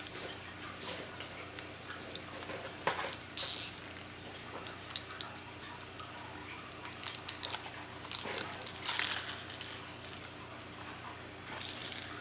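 Intermittent rustling and crinkling of packaging and paper shred in a cardboard box, with light taps and clicks; the loudest bursts come about three seconds in and again between about seven and nine seconds in.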